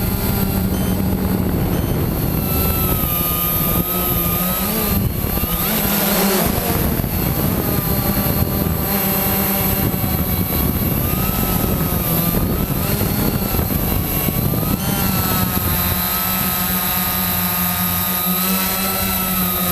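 Quanum Nova quadcopter's electric motors and propellers whining, the pitch rising and falling with the throttle.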